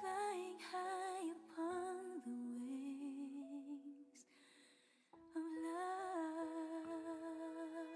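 Female singer humming a slow wordless melody with vibrato over soft backing music. It breaks off briefly about four and a half seconds in, then resumes and settles into a long held note.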